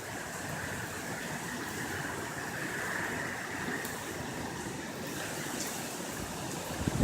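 Strong hurricane wind blowing, a steady noise without letup.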